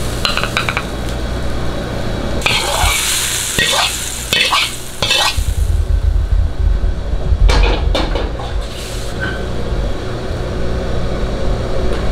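Metal wok spatula scraping and clinking against the wok and plate as stir-fried bean sprouts with egg are shovelled out, with some sizzling, over the steady low roar of a gas wok burner. Short runs of scrapes come near the start, in the first half, and again about two-thirds of the way in.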